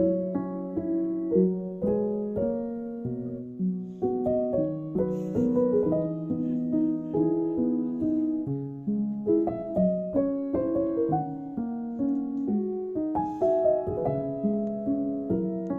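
Gentle solo piano music, a soft lullaby-like melody with sustained notes.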